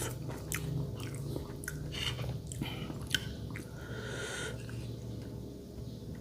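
A person chewing and biting close to the microphone: a run of small wet clicks and crunches from a mouthful of tum super, a spicy salad of boiled beef feet.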